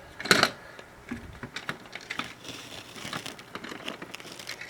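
Plastic toy figures being handled: a sharp plastic knock just after the start, then a run of light, irregular clicks and taps as the parts are moved and set down.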